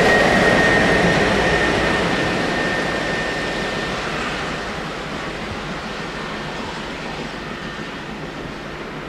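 Passing locomotive-hauled passenger train receding down the line, its rumble fading steadily. A thin high whine fades out in the first few seconds.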